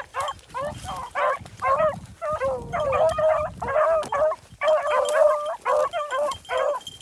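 A pack of beagles baying while running a rabbit. Repeated calls come about two a second, and several drawn-out calls overlap around the middle and again later on.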